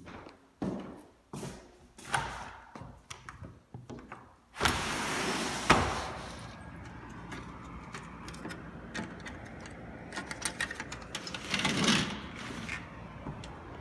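Footsteps on a hardwood floor, then a sliding glass patio door rolled open with a rumbling slide that ends in a knock, letting in the steady hum of outdoor traffic. A second rolling scrape comes about two seconds before the end, the screen door sliding open.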